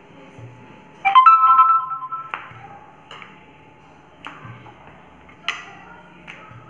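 A bright metallic ping about a second in that rings on for about a second, like a steel bowl being knocked, followed by a few light, separate knocks and clinks as chapati dough is dusted with flour and handled on a rolling board.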